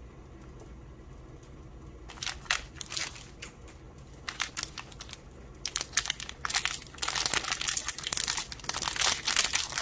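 A small plastic blind bag holding a mini figure is crinkled and torn open by hand. A few scattered crinkles start about two seconds in and become dense, continuous crinkling from about six seconds on.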